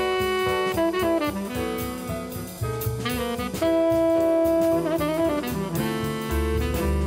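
Jazz background music: a horn lead holding long notes over a drum kit.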